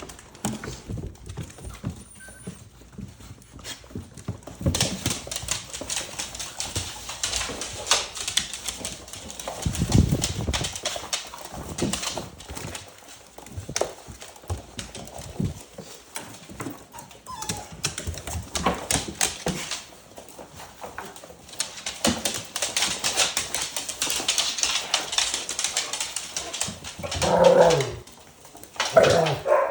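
Pit bull puppies scrambling about, their claws clicking quickly and unevenly on a hard floor, with a few short puppy whines or yips near the end.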